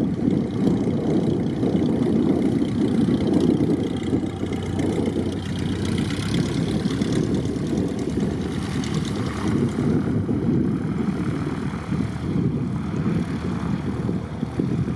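Reims-Cessna F150M's four-cylinder air-cooled engine and propeller running at low taxiing power as the light plane rolls close past, a steady low rumble.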